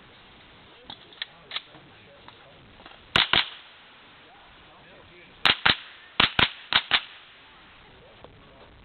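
Rifle shots: a pair of sharp reports about three seconds in, then three more pairs in quick succession a couple of seconds later, each report followed a fifth of a second later by a second crack. A few fainter clicks come before the first shot.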